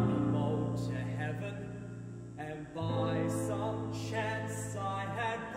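A young male soloist singing a Broadway show tune, with steady, held low notes sounding beneath his voice.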